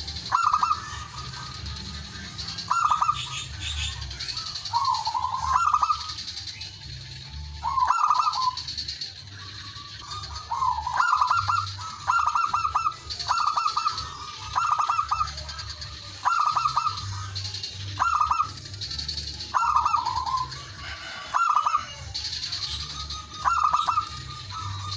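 Male zebra dove (perkutut) cooing its song, a short run of quick stuttering notes repeated phrase after phrase every second or two. Fainter high chirping runs behind it.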